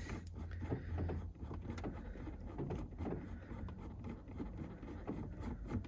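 Faint scattered clicks and rubbing as a gear knob is unscrewed by hand from the shift lever's thread, over a steady low hum.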